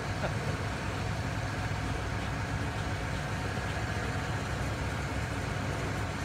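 Norfolk Southern open-top coal cars rolling slowly past at close range: a steady low rumble of steel wheels on rail. The uploader takes the train to be empty.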